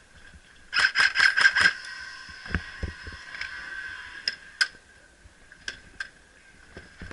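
Airsoft electric rifle (ECHO1 TROY MRF-S AEG) firing a rapid burst of about a second, a little under a second in, its motor and gearbox whining under the shots. Scattered single clicks and knocks follow.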